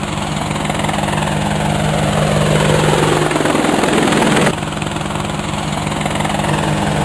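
Quadcopter drone rotors buzzing steadily. A falling whoosh, as if the drone passes by, builds and then cuts off suddenly about four and a half seconds in. The steady rotor buzz then carries on.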